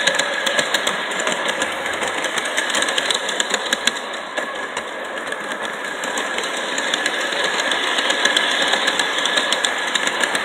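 LGB G-scale model train locomotive running along its track, close up: a steady whir from its small electric motor and gears with fast, continuous rattling and clicking.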